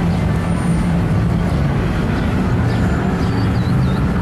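Engines of cars and pickup trucks running steadily as they cruise slowly past in a line, a continuous low engine sound of street traffic.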